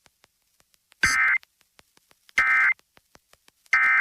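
Emergency Alert System end-of-message code: three short bursts of digital data tones, about a second and a half apart, marking the close of the flash flood warning.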